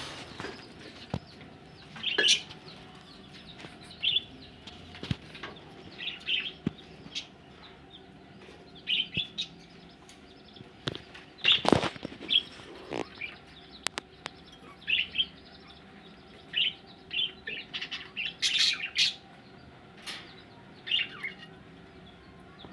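Budgerigars chirping in short, scattered high calls, with occasional sharp knocks or flutters among them, the loudest about halfway through.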